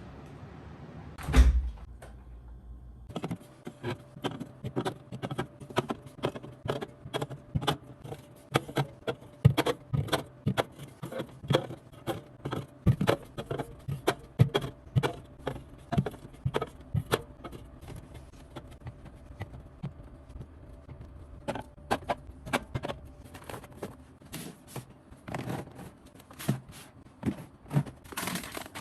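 Groceries being handled and put away: one heavy thump about a second in, then a dense run of small knocks, clicks and clinks as packages and containers are picked up and set down.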